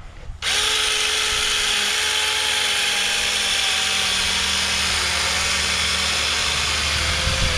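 Small chainsaw switching on about half a second in and running steadily at high speed, its pitch sagging slightly as it cuts into the pumpkin.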